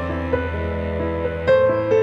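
Slow, gentle background music: held chords over a low sustained bass note, with a new chord struck about one and a half seconds in.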